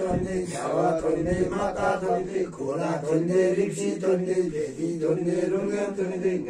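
Several men's voices chanting a ritual recitation together, continuous, over a steady low held pitch.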